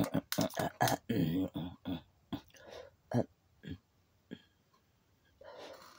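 Repeated sharp clicks of a torch lighter being sparked again and again to light an incense charcoal block that will not catch, quick at first and then sparser, with some muttering in the first second or two and a short rush of noise near the end.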